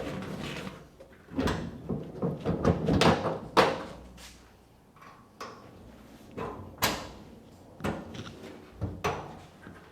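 Steel car door being hung back on the body: a run of clanks and rattles, then single sharp metal knocks about once a second as the door is set onto its hinges.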